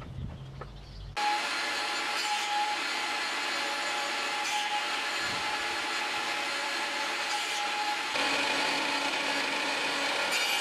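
Table saw ripping a thin strip of wood: a steady whine from the spinning blade mixed with the rasp of the cut, starting abruptly about a second in. Around eight seconds in the tone shifts and gets slightly louder.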